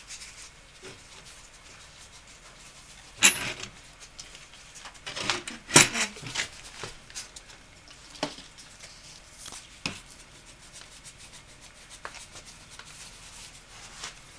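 Cloth rag rubbing over the wooden joints and spindles of a freshly glued chair, wiping off unhardened glue. It is broken by sharp knocks: two loud ones about three and six seconds in, then a couple of fainter ones later.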